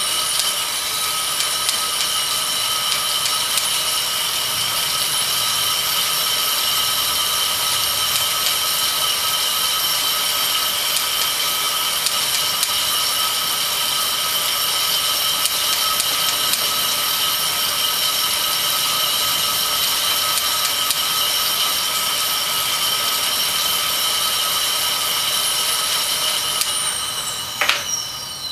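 Road bike tyres spinning on metal three-roller trainers while the rider pedals: a steady whine with several high tones over a hiss. Near the end the whine falls in pitch as the rollers spin down, with one sharp knock.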